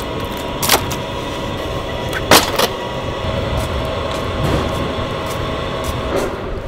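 Two-wheeled hand truck stacked with wooden crates being wheeled over concrete, the crates knocking and rattling; a sharp wooden knock about two seconds in is the loudest sound.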